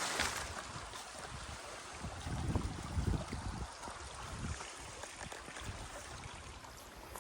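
Stream water running and babbling steadily, with a few low rumbles about two and a half to three seconds in.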